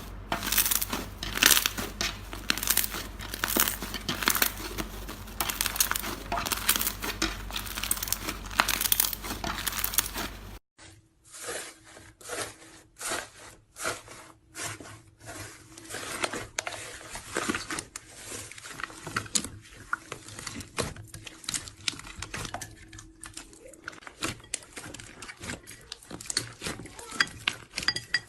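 Slime being squeezed, poked and stretched by hand: a dense, irregular run of sticky crackles, clicks and pops. The sound changes about ten seconds in, where another slime clip begins.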